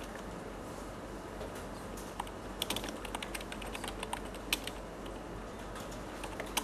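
Computer keyboard being typed on: irregular runs of short key clicks as a command is entered.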